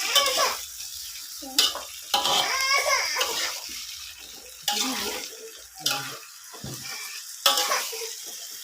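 Water splashing and sloshing with knocks of pots and utensils, in sudden bursts a second or so apart, as fish is prepared for cooking.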